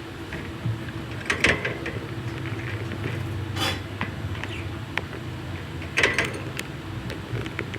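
Budgies in a cage making three louder short, sharp sounds about 1.5, 3.5 and 6 seconds in, with smaller ticks between, over a steady low hum.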